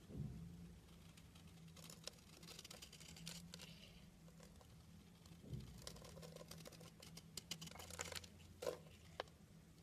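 Utility knife blade carving a bar of white soap: quiet, crisp crackling as shavings break off, in two spells with a pause between. A soft low thump comes near the start and again about halfway through.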